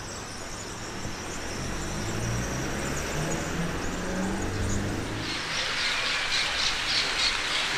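A car's engine hums low as it passes, its pitch stepping up. From about five seconds in, small birds chirp over and over.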